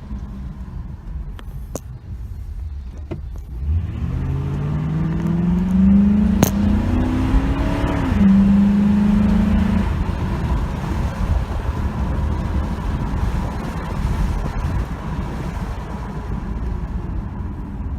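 2007 Ford Crown Victoria's 4.6-litre V8 running: from a low idle rumble it is revved up steadily for about four seconds, held at a fixed speed for a couple of seconds, then let back down to idle, as a test run after a misfire repair.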